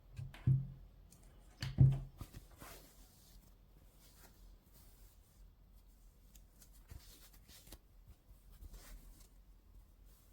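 Two dull thumps about a second apart, from sneakers or their box being handled and set down, followed by faint rustling and light taps of handling.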